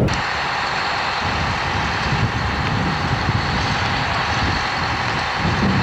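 Engine running steadily: an even hiss with a faint high whine held over an uneven low rumble.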